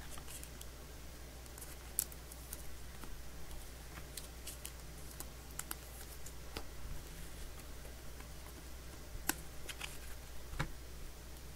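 Panini Mosaic football cards being flipped through by hand: faint, scattered clicks and snaps of stiff card edges against one another, over a low steady hum.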